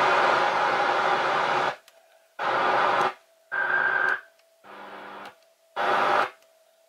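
Saab S-950 car radio made by Clarion, tuning across medium-wave and long-wave AM: bursts of static hiss that cut out between them as the frequency steps, about five in all. A faint steady whistle sounds in the gaps, and a brief higher whistle about halfway through.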